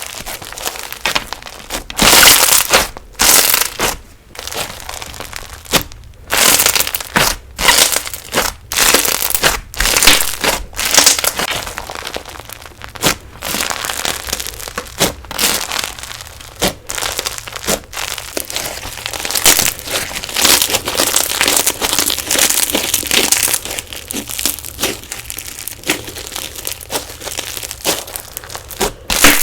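Crunchy slime being squeezed and pressed by hand, giving dense, irregular crackling and popping in uneven bursts.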